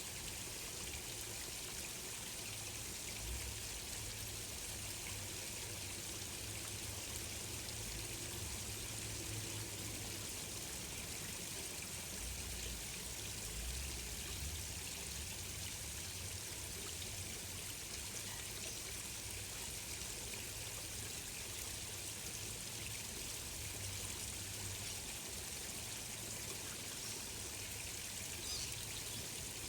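Steady flowing water, like a gently running stream, with a short faint high sound near the end.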